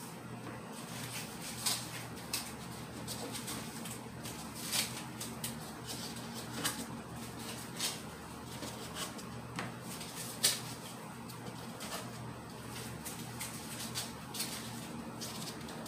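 Irregular light taps and clicks of cloning collars being pressed into the holes of a plastic cloner lid, over a steady low hum.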